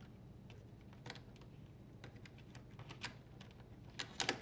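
Faint scattered plastic clicks and taps of a wire harness connector being handled and unplugged from a dishwasher door latch, with a quick cluster of sharper clicks near the end.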